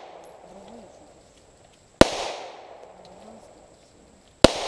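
Ruger P89DC 9 mm pistol fired twice, about two and a half seconds apart, the second shot near the end. Each shot is followed by an echoing tail that dies away over about a second.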